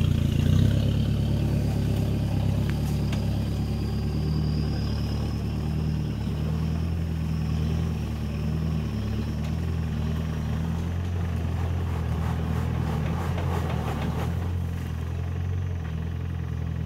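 A 4x4 pickup truck's engine running steadily at low revs as the truck crawls slowly over a rutted mud trail.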